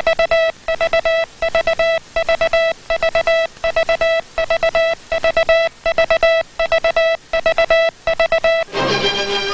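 Morse code sent as a single steady beeping tone, keyed in quick groups of dits and dahs with short regular pauses between the groups. Orchestral music comes in near the end.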